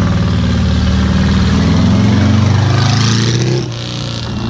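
A car engine accelerating, its pitch climbing steadily for about three seconds before the sound drops back briefly near the end.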